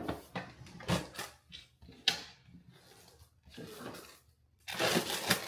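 Knocks, clicks and rustling as items are handled and moved around in a drawer, with a denser stretch of rustling and clatter near the end.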